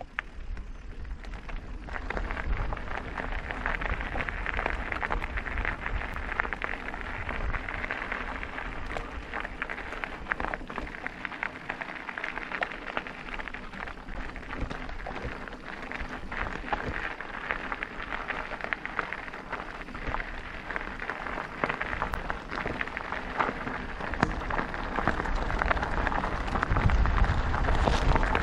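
Mountain bike tyres crunching and rattling over a rough gravel and stone trail: a dense crackle of small impacts that picks up about two seconds in, with a low rumble of wind on the microphone.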